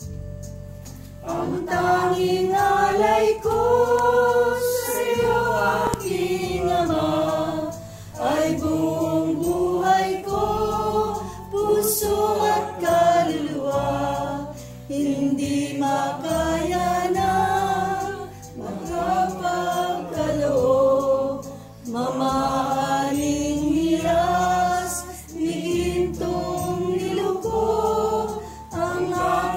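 A group of people singing a hymn together, in slow phrases of a few seconds each with short breaths between them.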